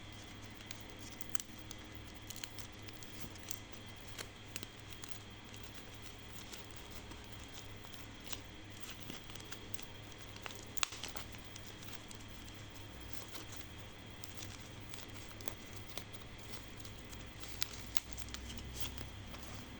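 Hands handling packaging and parts: scattered light clicks, ticks and crinkles over a steady low hum, with one sharper click about eleven seconds in.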